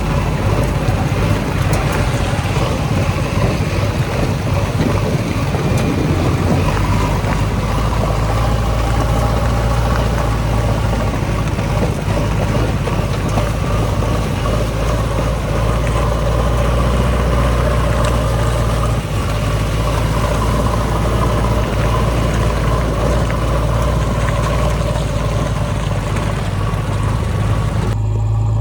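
Heavy diesel engine running steadily, a low drone holding a constant pitch throughout.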